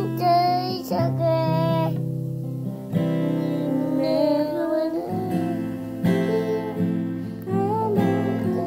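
Acoustic guitar strummed in chords, with a toddler singing along in a high voice.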